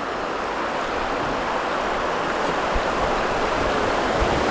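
Water rushing over a small weir, a steady noise that grows gradually louder as the canoe draws near the drop.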